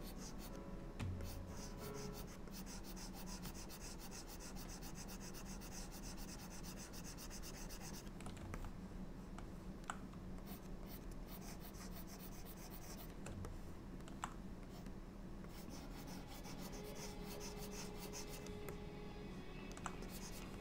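Faint scratching and rubbing of a pen stylus dragged across a graphics tablet in sculpting strokes, with a few sharp clicks.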